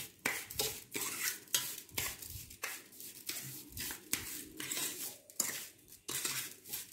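A spoon stirring grated coconut and sugar in a stainless steel bowl, scraping and clinking against the bowl in repeated strokes, about two or three a second.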